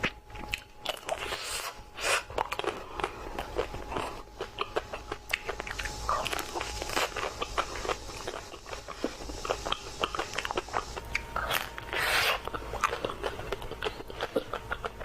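Close-up mouth sounds of someone eating ice cream: repeated biting and chewing with dense, irregular crackling clicks and a few longer wet smacks.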